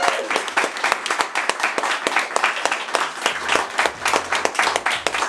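A small group of people applauding: many quick hand claps overlapping without a pause.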